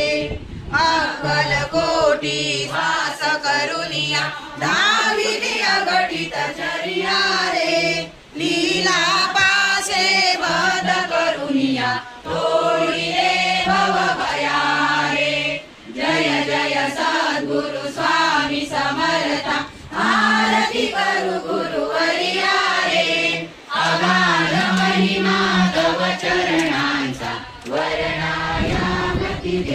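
A group of voices singing a devotional chant together, phrase by phrase, with short pauses between lines every few seconds.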